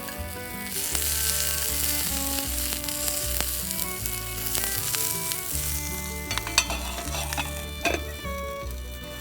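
Food sizzling and frying in hot oil in a pan, with a couple of sharp clicks of a utensil about two-thirds of the way through. Background music plays underneath.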